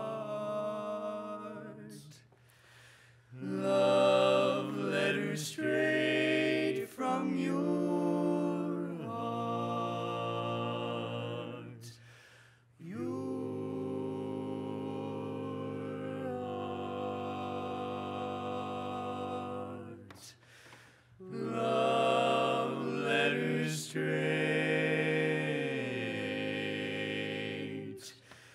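Male barbershop quartet singing a cappella in close four-part harmony: long, held chords in several phrases, with short breaks for breath between them.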